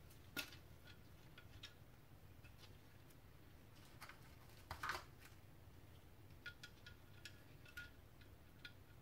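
Faint clicks and light taps of small parts being handled and fitted into a CVT's metal valve body. There is a sharp click about half a second in, a short cluster of taps around five seconds, and a few light ticks near the end, over near silence.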